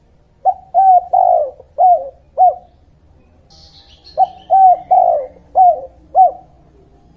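Dove cooing in two phrases of five coos each, with the third coo of each phrase drawn out. A brief faint high chirp from another bird comes in the pause between the phrases.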